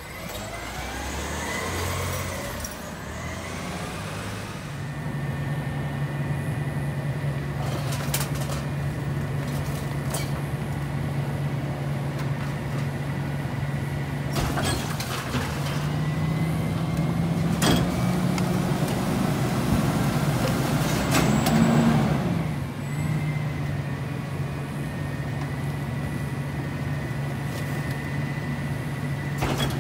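Rear-loader garbage truck's engine running steadily, speeding up for several seconds past the middle, with a few sharp clanks and bangs as recyclables are tipped into the rear hopper.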